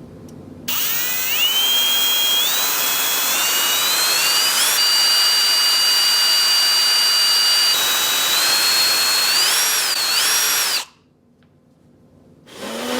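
Electric drill boring into an iPhone 7. The motor's whine climbs in steps to a steady pitch, shifts again and cuts off suddenly about eleven seconds in.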